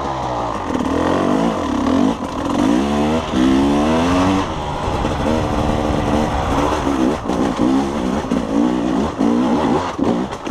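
KTM 300 two-stroke enduro bike engine under way on a trail, its revs rising and falling again and again as the throttle is opened and closed.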